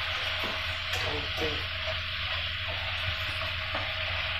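Pork sizzling steadily in a frying pan on a gas stove, over a low steady hum.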